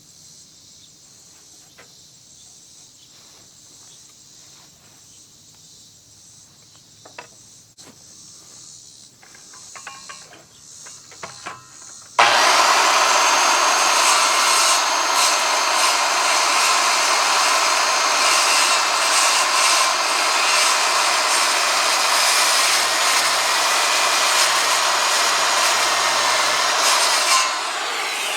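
A power saw cutting notches into treated lumber: a few faint clicks of handling, then about twelve seconds in the saw starts suddenly and cuts steadily for about fifteen seconds before dropping off.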